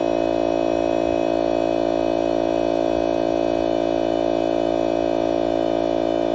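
DeWalt cordless compressor motor running at a steady, unchanging pitch, a constant hum.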